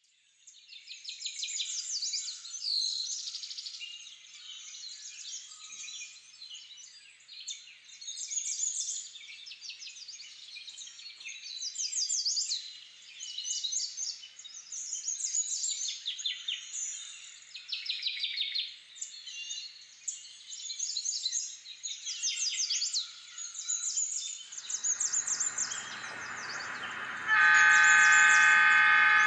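Birds chirping and singing, with many quick rising and falling calls. About 25 seconds in, a low locomotive engine rumble starts. A couple of seconds later a loud diesel locomotive air horn sounds, a steady chord of several tones held to the end.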